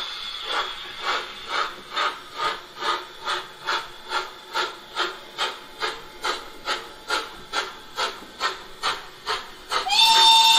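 Model steam locomotive's LokSound 5 sound decoder playing steady steam-exhaust chuffs, about two a second, as the Gauge 1 class 89 tank engine runs slowly. Near the end a steam whistle starts, several tones held together.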